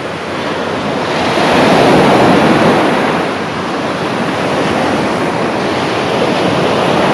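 Surf breaking and washing up a sandy beach, a steady rush that swells about two seconds in and eases a little after, with wind on the microphone.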